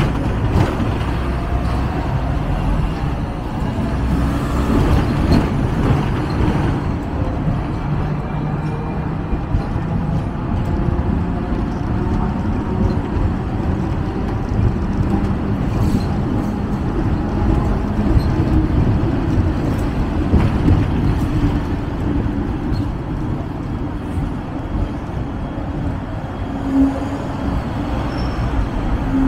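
Hong Kong double-decker electric tram running along the street, a steady rumble and rattle of the car on its rails mixed with road traffic, with a short steady tone near the end.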